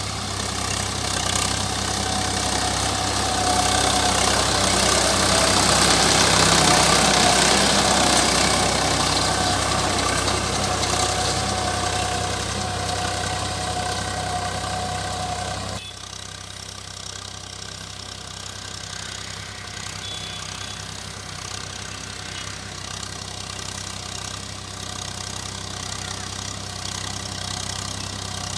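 Agri King tractor's diesel engine running steadily, loud and noisy at first. The sound drops suddenly a little over halfway through to a quieter, even engine note.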